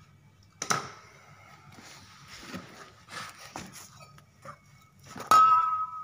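Metal hand tools clinking on a tiled floor: a sharp clink about a second in and a louder one near the end that rings on briefly, with softer knocks and handling noise between.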